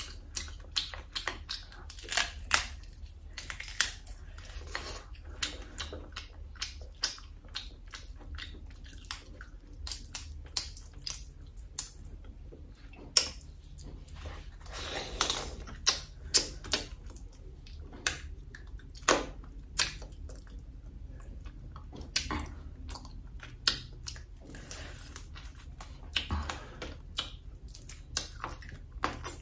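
Close-miked eating of fried crab: shells and legs cracked apart by hand and teeth, with wet chewing and biting. Sharp, irregular cracks and clicks come every fraction of a second, some of them louder snaps.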